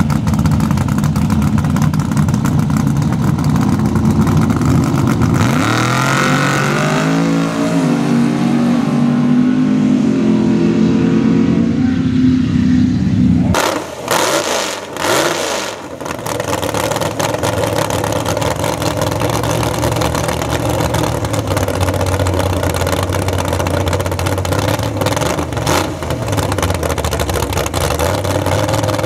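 Sand drag vehicle engines: a drag truck's engine running, then revving up and pulling hard for several seconds, its pitch climbing in steps. After a sudden change, a loud race engine with injector stacks idles with a rough, uneven beat.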